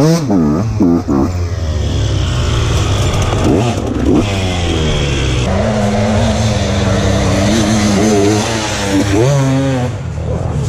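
KTM SX 125 single-cylinder two-stroke dirt bike engine revving up and down under throttle. The pitch wavers quickly at first, rises sharply about four seconds in and again near the end, with a steadier stretch between.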